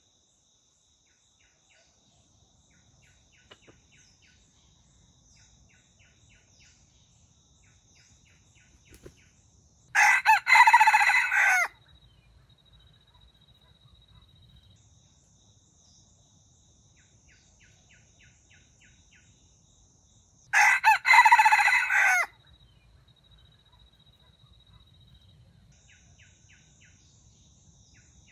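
Red junglefowl rooster crowing twice, about ten seconds apart, each crow short, under two seconds, and broken into a few clipped parts. Faint, steady, high insect drone between the crows.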